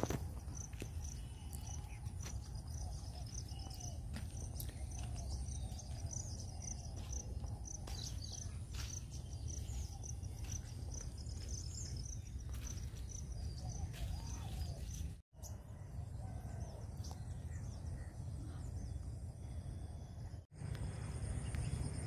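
Insects chirping in a high, evenly repeating pulse and birds calling now and then, over a steady low rumble and a few light footfalls on a stony track. The sound cuts out briefly twice.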